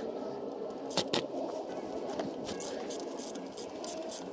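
Socket-wrench ratchet clicking in short irregular runs as it turns the oil pan drain bolt loose, with the clicks coming thickest in the second half.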